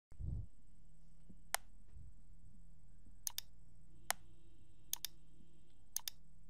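Computer mouse button clicking: single clicks and quick double clicks, about eight in all, over a faint steady hum. A soft low thump comes just as the sound begins.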